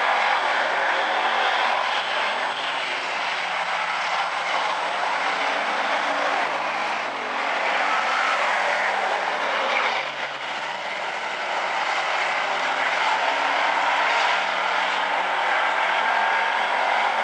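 A field of hobby stock race cars running at speed around an oval track: several engines blending into one steady drone that dips briefly about ten seconds in.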